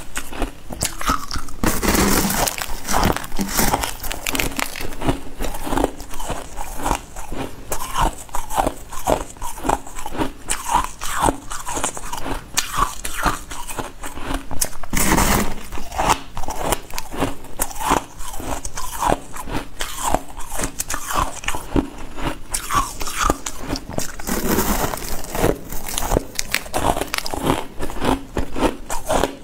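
A person biting and chewing ice close to the microphone: a long run of rapid, sharp crunches, with a few heavier bites where a larger piece breaks.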